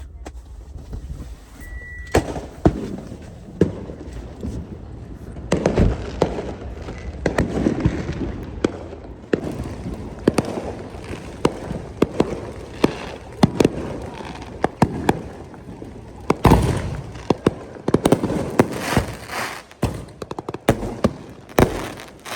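Consumer fireworks and firecrackers going off: a long run of sharp bangs and pops at uneven intervals, thickening into rapid crackling over the last several seconds.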